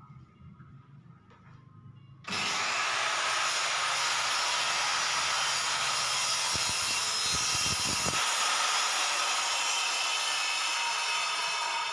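Circular saw switched on about two seconds in and cross-cutting a plywood board along a guide rail: a steady high motor whine mixed with blade-cutting noise, stopping near the end.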